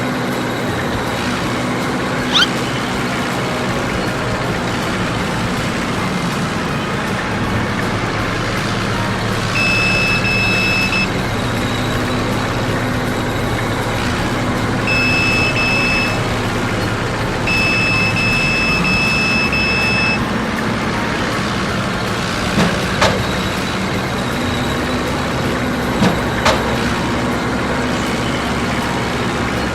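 A construction truck's engine running steadily, with three runs of reversing-alarm beeps between about ten and twenty seconds in, and a few sharp clicks.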